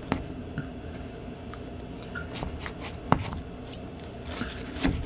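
Scattered light clicks and handling noises of a plastic hot sauce bottle being squeezed and drizzled over breaded chicken bites, with sharper clicks right at the start, about three seconds in and near the end, over a faint steady background noise.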